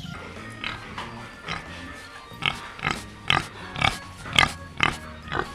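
Domestic pig grunting: a series of about ten short grunts, roughly two a second.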